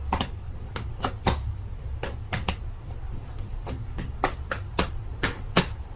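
A quick run of sharp, uneven clicks or taps, about four a second, over a low steady hum.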